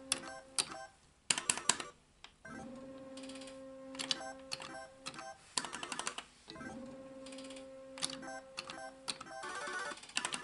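Solex 2 pachislot machine playing through games. In each game a steady electronic tone sounds while the reels spin, three sharp clicks about half a second apart mark the stop buttons halting the reels, and a short rattle of medal clicks follows. The cycle repeats about every four seconds, three times over.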